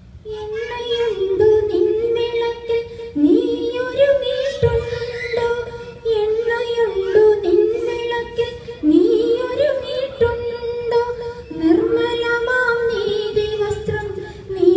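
Women singing a melody together, its phrase rising and falling and repeating every few seconds.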